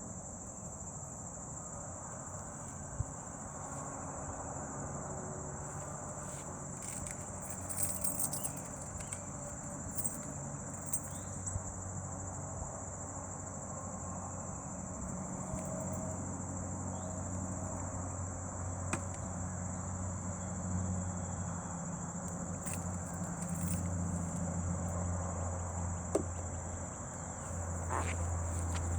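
Crickets trilling steadily on one high pitch, with a low hum underneath that swells toward the end and a few scattered clicks.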